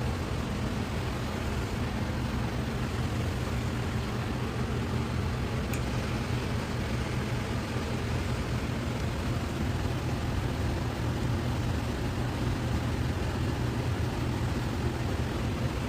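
A steady low mechanical hum under a broad hiss, like a motor or fan running at constant speed, with no change in pitch or level.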